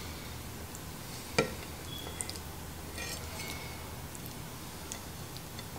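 Chef's knife blade clinking against a ceramic plate as raw tuna slices are nudged into place: one sharp click about a second and a half in, then a few faint taps. A low steady hum runs underneath.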